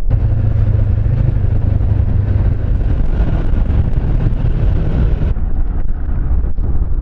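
Motorcycle engine running at steady speed with wind and road noise; the sound turns duller about five seconds in.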